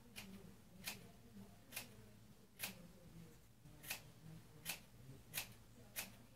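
Hair-cutting scissors snipping through a lock of bangs: seven short, sharp snips, a little under a second apart.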